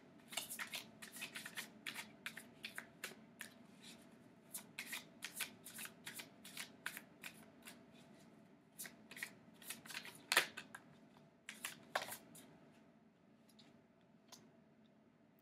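A Thoth tarot deck shuffled by hand: a quick, uneven run of card clicks and flicks, with two louder snaps about ten and twelve seconds in, then only a few faint ones near the end.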